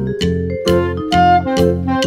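Instrumental background music with a steady beat and melodic pitched notes.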